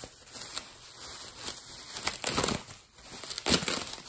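Green plastic bubble wrap crinkling and rustling as it is pulled off the blade of a gold-painted shovel, in irregular bursts that are loudest about two and three and a half seconds in.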